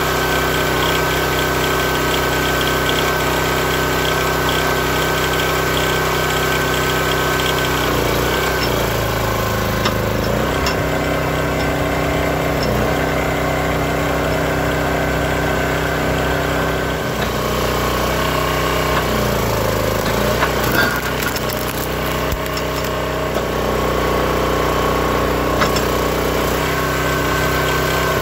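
Small gas engine of a Built-Rite hydraulic wood splitter running steadily, its pitch dipping twice under load as the hydraulics lift a large log round and push it through the splitting wedge.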